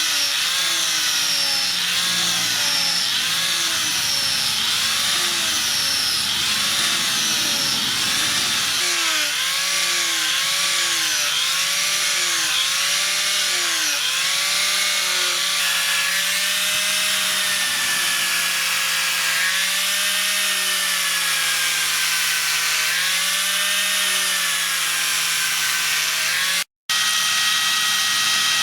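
Electric power tool cutting or grinding steel, its motor pitch dipping and recovering about once a second as it is pressed into the work. It cuts out briefly near the end and returns at a steadier pitch.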